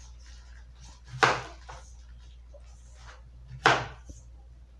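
A knife chopping on a cutting board: two sharp strikes about two and a half seconds apart, over a low steady hum.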